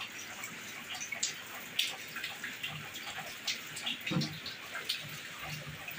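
Pindang fish stew simmering in a metal pan on a gas burner, bubbling with scattered small pops, while a spatula stirs through it.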